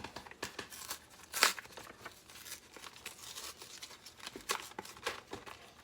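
Crinkling and tearing of plastic packaging as a pack of AA batteries is opened: a run of irregular crackles, with one louder rip about a second and a half in.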